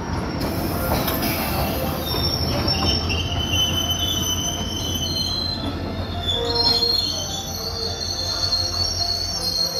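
Passenger coaches of a departing express train rolling past close by, a steady rumble of steel wheels on rail with thin, high-pitched wheel squeal coming and going over it.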